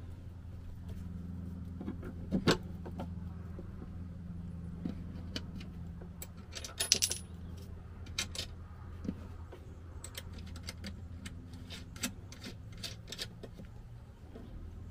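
Metal clinks and rattles of a battery hold-down bracket and its hardware being handled and set in place over a golf cart battery. There is a quick cluster of clinks about seven seconds in and single clicks scattered elsewhere, over a steady low hum.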